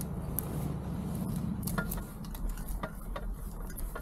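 Paramotor trike on the move: a steady low rumble with many irregular light clicks and rattles.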